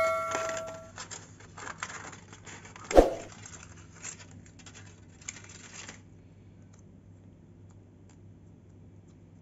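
Crumpled aluminium foil crinkling and being cut with scissors, with one sharp click about three seconds in; the crinkling stops about six seconds in, leaving only a faint hum. A bell chime rings out and fades in the first second.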